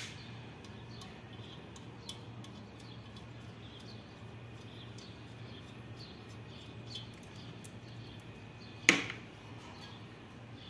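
A cylinder head being worked loose from the engine block by hand: a steady low hum and faint high ticks, then one sharp metallic clunk about nine seconds in.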